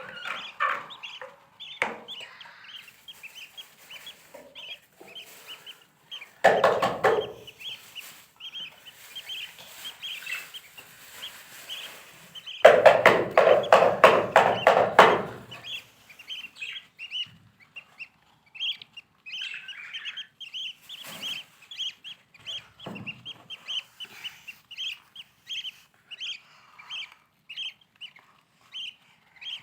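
Lovebirds chirping: short high chirps repeated over and over. About six seconds in and again about thirteen seconds in there are louder, denser bursts of rapid harsh calling.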